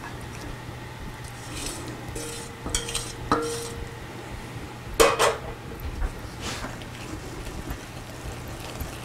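Metal spoon scraping and clinking against a small saucepan as melted butter is scraped out into a mixing bowl. There are a few ringing clinks, then two sharp metal clanks about five seconds in, which are the loudest sounds. After them comes the lighter sound of the spoon stirring the cookie dough.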